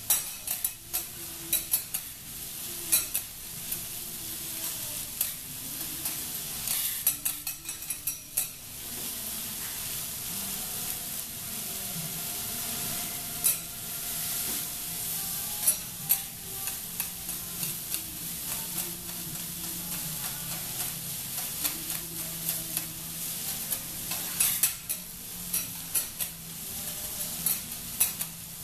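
Food sizzling on a teppanyaki steel griddle while metal spatulas scrape and tap against the hot plate in quick, irregular clicks, in clusters near the start, about a third of the way in and near the end.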